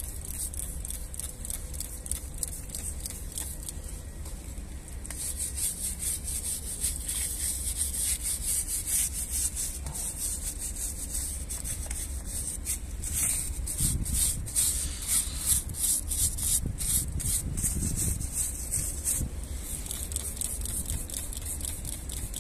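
Stiff brush scrubbing an oily diesel cylinder head soaked in alkaline cleaner, rapid scratchy back-and-forth strokes starting about five seconds in and stopping a few seconds before the end.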